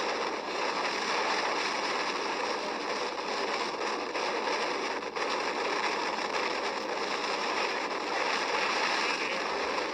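Steady rushing storm noise with no distinct events in it.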